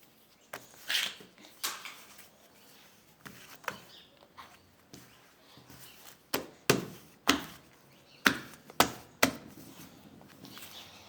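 Slime mixed with kinetic sand being stirred and worked in a container, giving irregular sharp knocks and sticky clicks, about a dozen, coming faster and louder in the second half.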